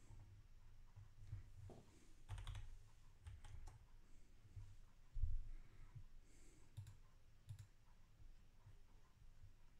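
Faint, scattered clicks of a computer mouse and keyboard being worked, with a soft low thump about five seconds in.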